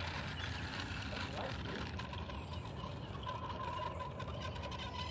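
FMS Ranger 1220mm electric RC plane taxiing on the runway, with a steady squeal setting in about three seconds in and holding. Beneath it is a low steady rumble.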